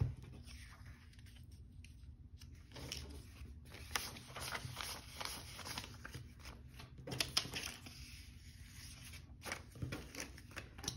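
Paper dollar bills rustling and crinkling as a stack is handled, fanned and laid on a tabletop, with scattered light taps and swishes that grow busier after about three seconds.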